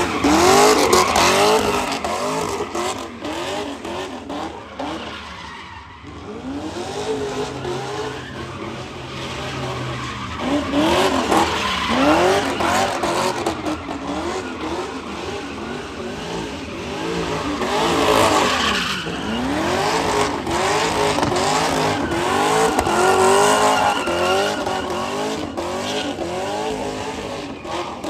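A sedan's engine revving up and down again and again while the car drifts in circles, with its tyres skidding and squealing on wet pavement. It fades a little about five seconds in, then grows louder again.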